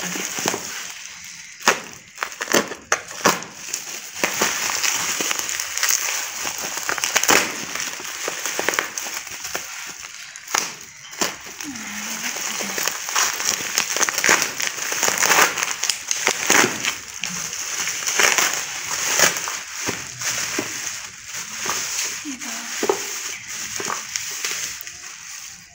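Plastic bubble wrap crinkling and crackling with many sharp clicks as it is handled and unwrapped from a smartphone box.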